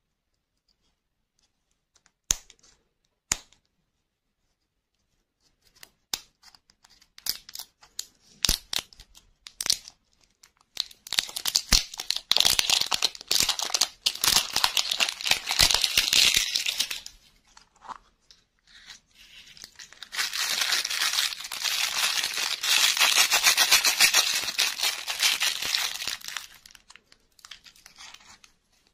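Printed plastic wrapper being torn and peeled off a plastic surprise-ball capsule: a few sharp clicks, then scattered crackles building into two long stretches of dense crinkling and tearing, with small clicks near the end.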